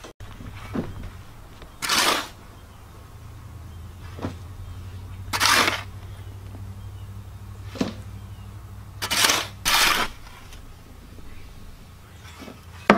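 Long-handled shovel digging into loose sandy soil and throwing it in to backfill around a plastic septic tank: four loud scraping swishes a few seconds apart, with lighter scrapes between. A low steady hum runs underneath.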